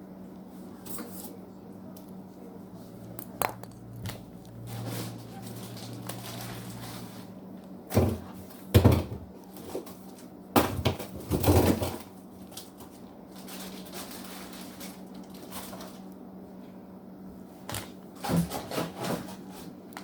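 Frozen food and containers being handled and moved around in a home freezer: scattered knocks, clunks and rustling of packaging, heaviest in a cluster about halfway through and again near the end, over a steady low hum.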